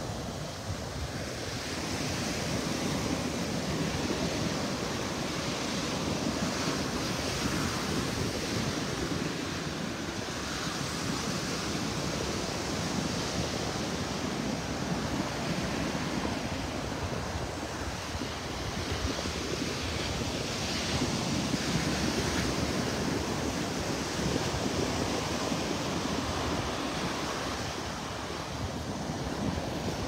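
Atlantic surf breaking and washing up the beach, swelling and easing every few seconds, with wind rumbling on the microphone.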